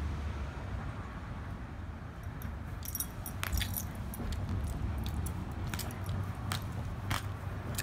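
Two dogs tugging and chewing at a plush dog toy: scattered sharp clicks and jingles from about two seconds in, over a low steady rumble.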